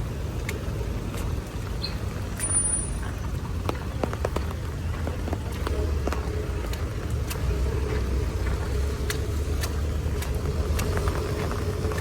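Street traffic: vehicle engines running with a steady low rumble and a hum that comes in about halfway through, over scattered light ticks.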